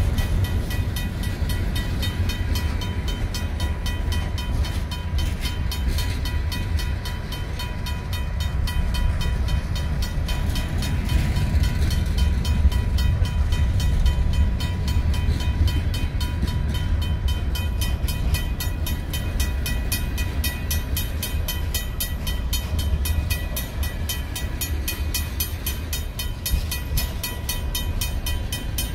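Freight cars of a Union Pacific manifest train rolling past with a low, steady rumble, while the crossing's mechanical warning bell rings in rapid, even strokes the whole time.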